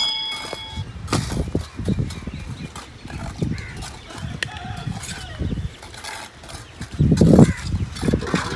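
Bricklaying with a steel trowel: a run of short knocks, taps and scrapes as red bricks are bedded and tapped down into cement mortar, with a heavier low thud about seven seconds in.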